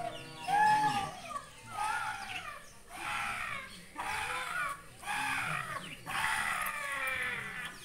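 Several voices singing in short phrases that rise and fall, a new phrase about every second.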